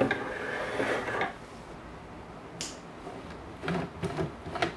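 Cloth pieces rubbing and sliding on a tabletop for about a second, then a sharp click and a few light knocks as the fabric is set under a sewing machine's needle. The sewing machine is not yet running.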